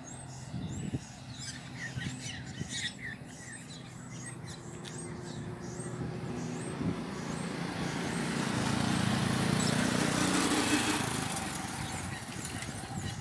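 Birds chirping in short repeated calls for the first few seconds. Then a motor vehicle passes on the road, growing louder to a peak about ten seconds in and fading away.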